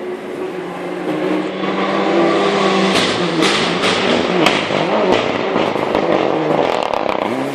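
Rally car approaching and passing at speed, its engine revving up and down through gear changes, with several sharp cracks about three to five seconds in, then fading near the end.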